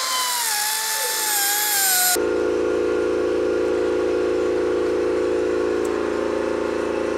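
A grinder with a cutting wheel whines as it cuts an old carrier bearing off a differential carrier, its pitch sagging as the wheel bites. About two seconds in the sound switches abruptly to a steady, lower hum.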